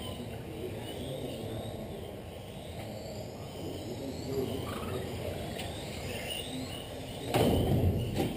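Electric 1/10 RC touring cars racing on a carpet track: motor whines rising and falling as the cars accelerate and brake, over a steady low rumble, with a louder burst near the end lasting under a second.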